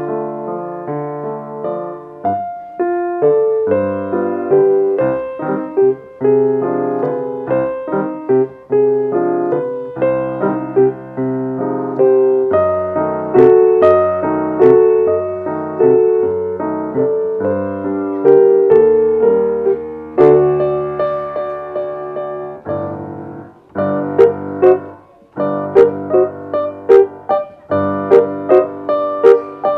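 Steinway & Sons grand piano played solo: a classical piece, note after note with chords underneath. About three-quarters of the way through it briefly drops quieter, then goes on with short, crisply struck chords.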